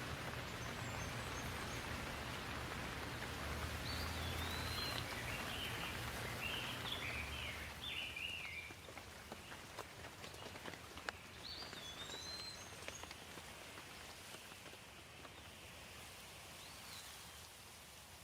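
Steady rain falling, with small birds chirping a few seconds in and again around twelve seconds in. The rain fades out at the very end.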